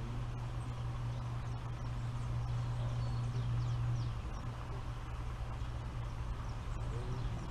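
Pond-side outdoor ambience: a steady low hum that eases off about four seconds in, with faint high bird chirps over it.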